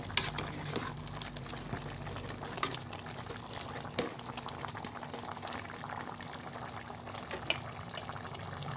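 Chicken afritada stew bubbling as it simmers in tomato sauce in a pot, while a metal spatula stirs it, clinking against the pot a few times.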